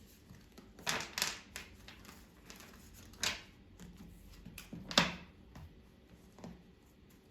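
Tarot cards being handled and shuffled: a few short papery swishes and snaps of the deck, the loudest about five seconds in.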